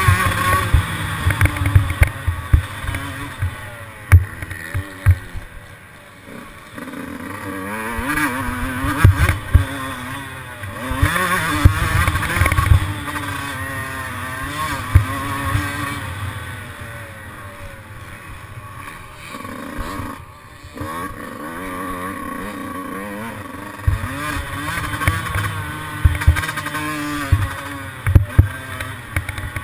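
Yamaha YZ125 125cc two-stroke single-cylinder engine being ridden hard on a motocross track, its pitch climbing and falling again and again as the rider opens and closes the throttle, with a heavy uneven low rumble and knocks underneath.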